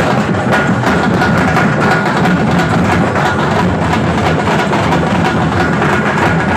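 A melam drum troupe playing a fast, dense rhythm on large stick-beaten frame drums and steel barrel drums.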